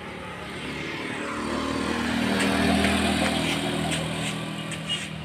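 A motor scooter driving past on the road. Its engine grows louder to a peak about halfway through, then fades as it moves away.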